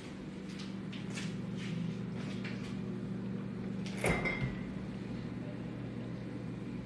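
A refrigerator door or drawer being handled: a few light ticks, then one sharp knock about four seconds in with a brief ring. A steady low hum runs underneath.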